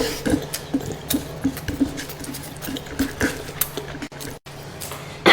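Close-miked mouth sounds of chewing food, a steady rhythm of soft wet chews with small clicks, about three a second.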